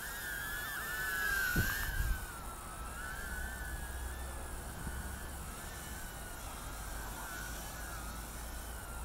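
A JJRC H36 mini quadcopter's tiny coreless brushed motors and propellers whining in flight at a high pitch. Several close tones waver up and down with the throttle. A short low thump comes about one and a half seconds in, and a low rumble runs underneath.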